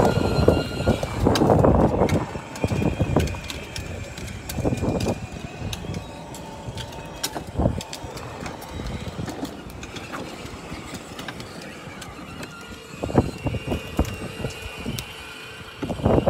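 Children's battery-powered ride-on toy cars running on concrete: plastic wheels rolling and a motor whir, loudest in the first couple of seconds.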